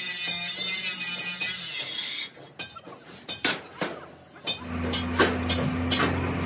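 Electric angle grinder cutting steel, which stops sharply about two seconds in. A few sharp metallic clinks and knocks follow, and near the end a low steady hum starts under more knocks.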